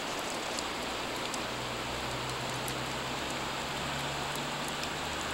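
Steady rush of river water, an even hiss with no break.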